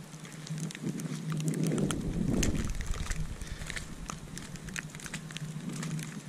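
Footsteps crunching on a snow-covered road, many small irregular crunches, over a steady low hum. About a second and a half in, wind buffets the microphone for a second or two; this is the loudest part.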